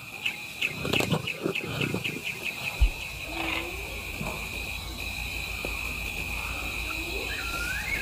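Night bush ambience: insects trill steadily, with a quick run of chirps in the first two or three seconds. Under them are low sounds of a lioness moving and sniffing at a giraffe carcass. A low steady hum comes in about three seconds in.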